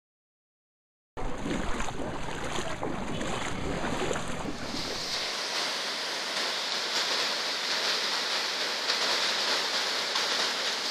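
Fast-flowing floodwater torrent rushing steadily, starting about a second in, with no distinct crash; the sound changes abruptly about four seconds in to a brighter, thinner rush.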